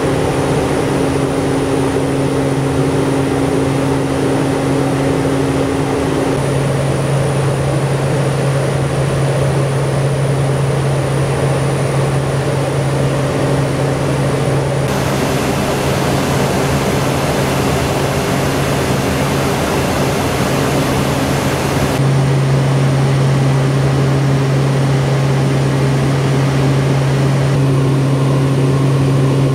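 Twin turboprop engines of a Short C-23B Sherpa droning steadily in cruise, heard from inside the aircraft, with a strong low propeller hum under a dense rushing hiss. The character of the hiss shifts abruptly a few times and is brighter for several seconds in the middle.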